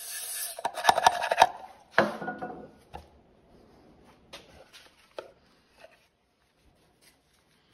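Aerosol brake cleaner hissing as it sprays onto a steel oil drive gear in a plastic tub, then a cluster of loud knocks and clatter about a second in as the can and tub are handled on a wooden bench. A sharp knock with a short ring follows at about two seconds, then scattered light taps.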